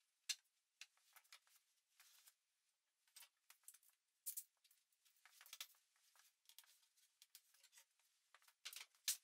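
Near silence with faint, scattered light taps and clicks from handling the wooden lid panel, ending in a sharper click as the panel is lifted off the bench.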